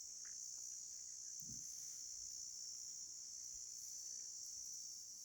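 Steady chorus of insects: an unbroken high-pitched trill or drone.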